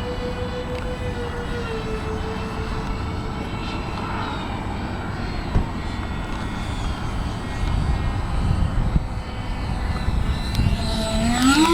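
RC model airplane motor running at a steady pitch that dips slightly about two seconds in, then rises sharply in pitch near the end as it is throttled up. Wind rumbles on the microphone underneath.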